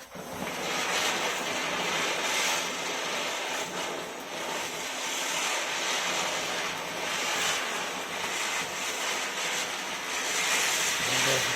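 Coronation Fireworks' Zamin Chakkar Deluxe ground chakkar (a ground spinner on a plastic wheel) burning and spinning: a steady hiss of spraying sparks that starts at once and keeps going, swelling a little now and then.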